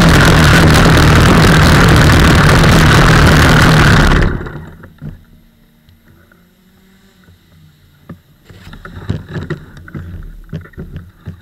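Kart engine running loud and steady close to the onboard microphone while the kart is stationary, then shut off abruptly about four seconds in. A few seconds later come scattered knocks and rattles on the kart's frame as the driver moves in the seat.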